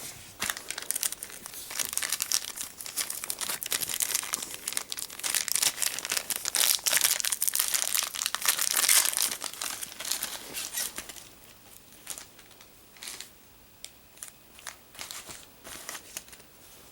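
Toy packaging crinkling and rustling as it is handled and opened, dense and loud for the first ten seconds or so, then thinning to scattered crackles.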